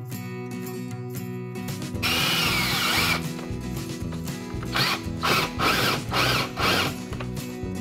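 Cordless drill spinning a wire cup brush against an aluminium cylinder head, scrubbing off buildup. It runs once for about a second, its whine dropping in pitch as it stops, then comes in four short bursts near the end. Acoustic guitar background music plays throughout.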